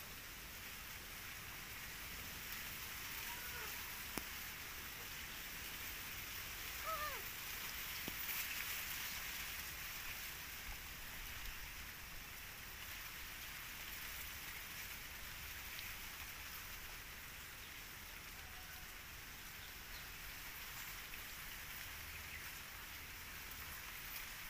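Steady faint hiss of outdoor background noise, with a couple of brief faint squeaks about three and seven seconds in.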